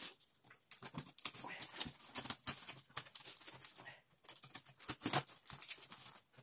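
Plastic packing tape being cut with a knife and ripped off a cardboard parcel box: a string of short, irregular rasps and rips.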